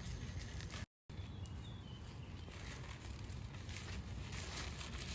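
Outdoor background noise with a steady low rumble and faint scattered rustles and clicks, cut by a brief dropout about a second in.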